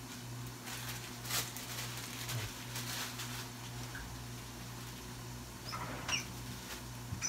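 Faint kitchen sounds: a steady low hum with scattered light clicks and taps, a little louder in the first half, and a few short high squeaks near the end.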